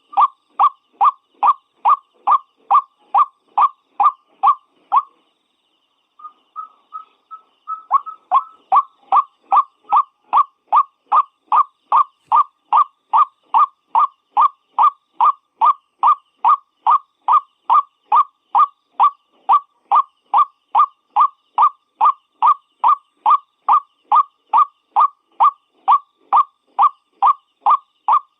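White-breasted waterhen (ruak-ruak) calling: a long run of repeated loud notes, about two a second. The calling breaks off about five seconds in and starts again a second later with softer, quicker notes that build back up to full strength.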